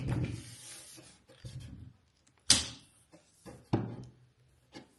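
Handling of a cordless pole saw and its parts: a short sliding rasp at the start, then a few separate sharp clicks and knocks, the loudest about halfway through.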